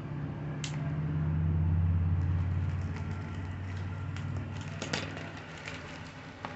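A low rumble that swells and then fades over a few seconds, with a few sharp clicks and rustles of a plastic shipping package being handled and cut open.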